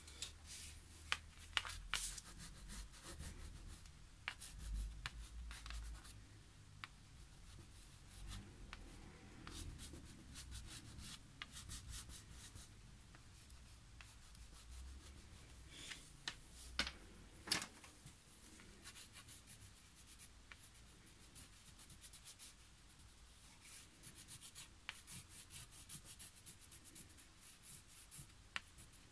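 Wax crayon scribbling and hatching on drawing paper: faint, quick, irregular scratchy strokes, with a few sharper taps about a second and a half in and again a little past halfway.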